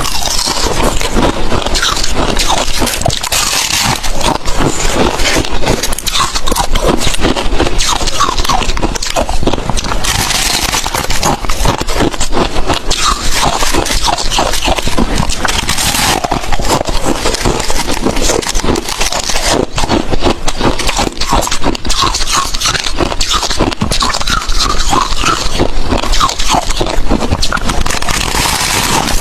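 Close-up chewing of crushed ice: continuous loud, dense crunching and crackling as the ice is bitten and ground between the teeth.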